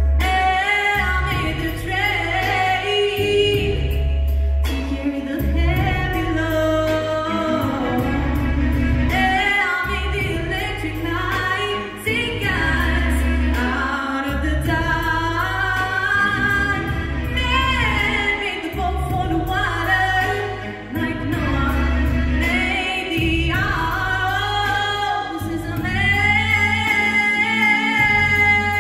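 A girl singing a solo pop song into a microphone, amplified over an instrumental accompaniment with a pulsing bass.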